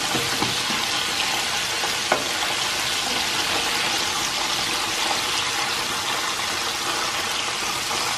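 Flour-coated chicken pieces deep-frying in a pot of hot oil: a steady, loud sizzle of bubbling oil, with a single sharp click about two seconds in.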